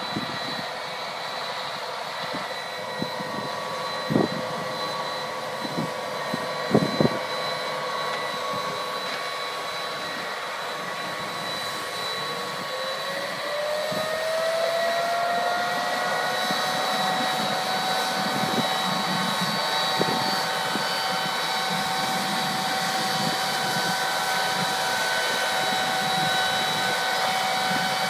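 John Deere tractor running as it pulls a 24-row bean planter past, a steady machine drone with several steady whines. About twelve seconds in, one whine rises in pitch and then holds, and the sound grows louder as the rig comes close. A few sharp knocks sound in the first seven seconds.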